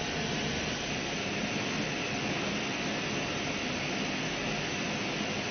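Steady, even rushing noise from machinery, with no distinct knocks or clicks.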